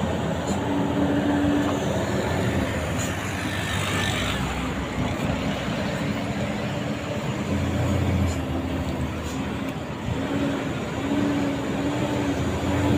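Heavy diesel truck engine running steadily, with road and tyre noise. A low engine hum fades in and out.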